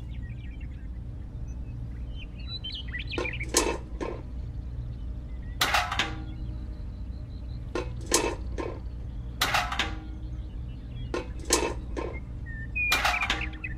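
Small tin buckets clinking and knocking as they are picked up and set down one at a time, in about six short clusters, over a steady low hum.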